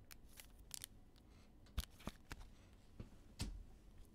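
Faint handling noise of football trading cards and a foil card-pack wrapper on a tabletop: scattered light clicks and short rustles, the sharpest about 2 and 3.5 seconds in.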